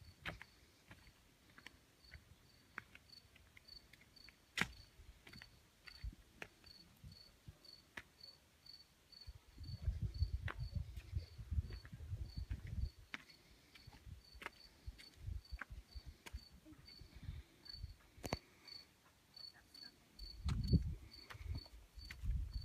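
A cricket chirping steadily, about two high-pitched chirps a second, with scattered light clicks throughout. Low rumbling comes in for a few seconds around the middle and again near the end.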